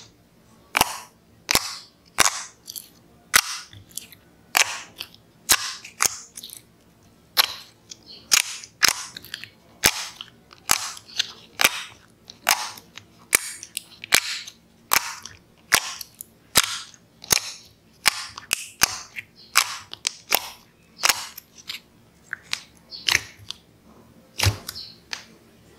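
Fingers pressing and poking into thick glossy slime in a plastic tub, making a long run of sharp wet pops and clicks as trapped air bursts, about one or two a second.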